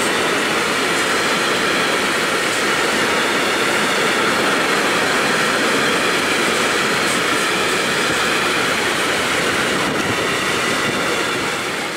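Freight train of rail tank wagons rolling past at close range: steady, loud noise of steel wheels on the rails.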